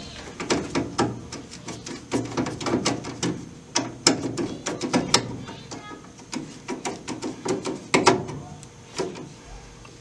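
A screwdriver turns in the mounting screw of a furnace pressure switch on the sheet-metal cabinet, giving a run of irregular sharp clicks and metal ticks, several a second.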